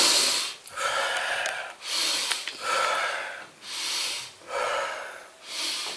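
A man taking deep, forceful breaths in and out through the nose as a pranayama breathing exercise: a run of about seven loud breathy rushes, roughly one a second.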